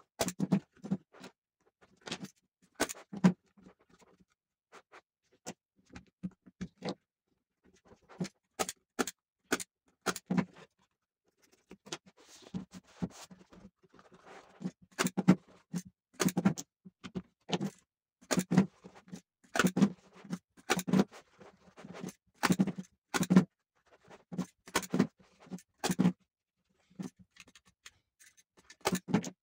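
Irregular light knocks and clicks from hands-on work on a wooden chair, coming in quick clusters with short pauses.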